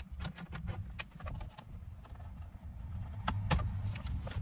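Plastic wiring-harness connectors and loose cables clicking and rattling as they are handled and plugged into the back of an aftermarket car radio, with a few sharper clicks, over a low steady rumble.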